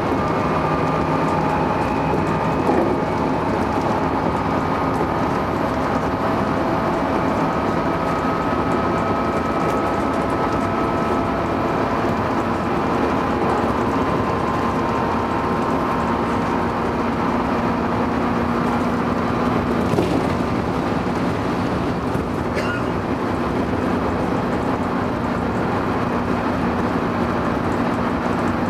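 Electric local train running steadily at speed, heard from inside the leading car: a continuous rumble of wheels on rail with steady humming tones over it, and two sharp clicks about two-thirds of the way through.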